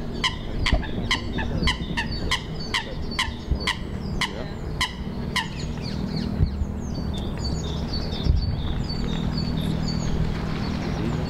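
A bird giving a rapid series of short, sharp calls, about three a second, which stops about halfway through; fainter high chirps follow, over a steady low hum.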